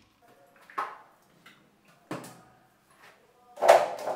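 A few scattered knocks and bumps of household handling, each with a short ring after it, the loudest near the end.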